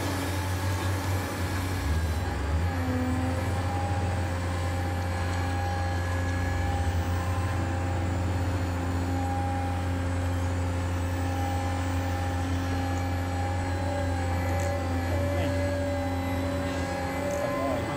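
Radio-controlled model excavator working in sand: a steady low hum with a thin mechanical whine above it, wavering slightly as the arm and swing move.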